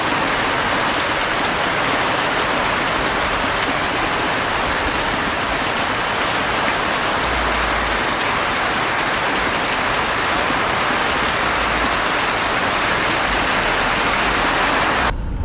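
Rain falling steadily, a loud, even hiss that stops abruptly near the end.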